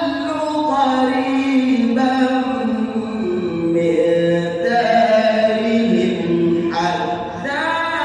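A man reciting the Quran in melodic tajweed style, holding long ornamented notes that step and slide between pitches, with a short break for breath about seven seconds in.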